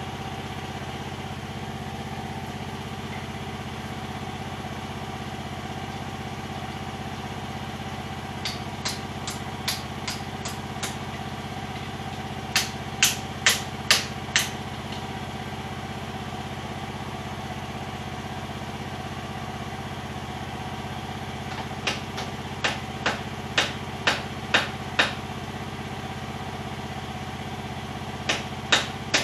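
Diesel mini excavator idling steadily while a hammer strikes metal at the boom in bursts of blows about two a second: first lighter taps, then heavier strikes, driving a loose boom bushing back into place.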